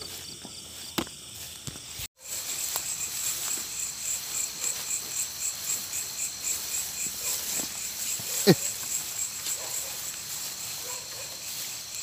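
Night chorus of crickets and other insects: a steady, evenly pulsing high trill. The sound cuts out for a moment about two seconds in, and a single loud sharp knock stands out about eight and a half seconds in.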